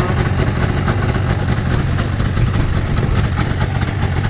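Yamaha VK540 snowmobile's two-stroke twin engine idling steadily while it warms up after a cold start.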